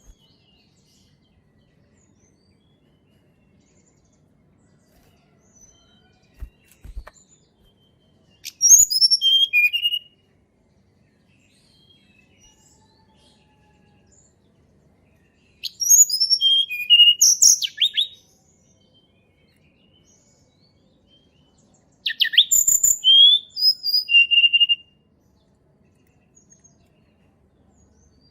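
Tledekan gunung songbird singing three short bursts of rapid, high, whistled and chirping notes, each a few seconds long, with quiet gaps between them.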